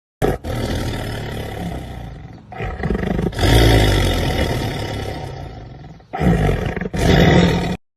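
A big cat roaring and growling in a few long, rough bursts, the loudest about three and a half seconds in. It cuts off suddenly near the end.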